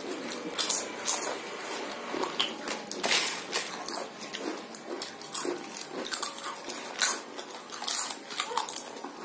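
Several people crunching and chewing Lay's potato chips, many short irregular crackles, a few a second.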